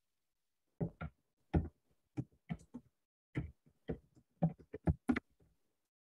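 Computer keyboard being typed on: about a dozen irregular keystrokes over some four seconds, starting about a second in.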